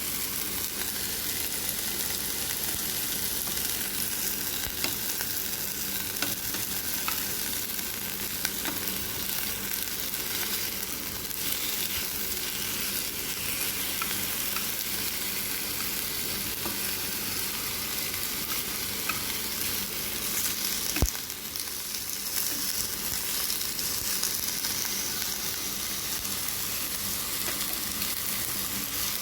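Julienned chicken breast strips sizzling steadily as they fry in olive oil in a pan, stirred now and then with small clicks of the utensil against the pan. One sharper knock comes about two-thirds of the way through.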